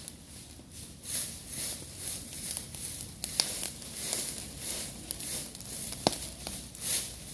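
Burning dry leaves and brush crackling, with scattered sharp pops; the loudest pop comes about six seconds in. A high hiss pulses underneath about twice a second.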